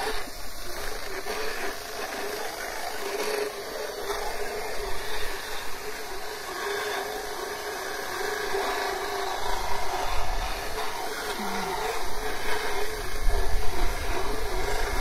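Motorized equine dental float running steadily with a constant whine as it files down a horse's teeth; a deeper rumble builds in the last few seconds.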